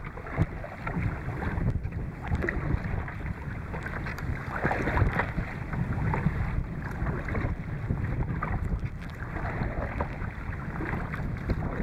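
Strong headwind buffeting the microphone in a heavy, gusty rumble, over choppy water splashing against a kayak's hull, with a louder surge about halfway through.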